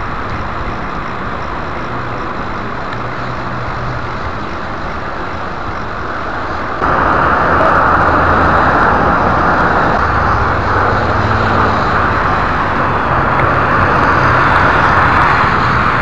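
Steady road-traffic noise heard while riding a bicycle along a roadside cycle path, an even rushing hiss with a low rumble. It gets suddenly louder about seven seconds in and stays that way.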